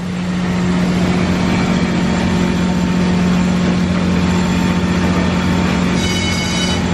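Engine-room machinery of the sternwheel steamboat Natchez running steadily: a low hum with a strong steady tone under a wide hiss. Near the end a short high tone sounds briefly over it.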